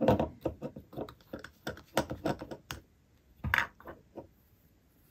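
Quick plastic clicks and taps from a super glue bottle being handled and its cap twisted off, with a louder knock a little past halfway, then quiet.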